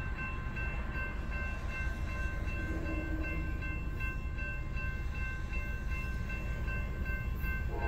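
Railroad crossing warning bell ringing in evenly repeating dings over a low rumble, as the crossing gates come down: the crossing is signalling an approaching train.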